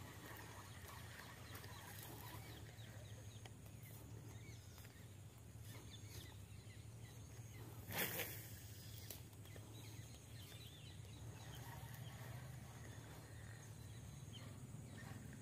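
Sharp, brief swish of a fishing rod being cast, about halfway through, over faint bird calls and a steady low hum.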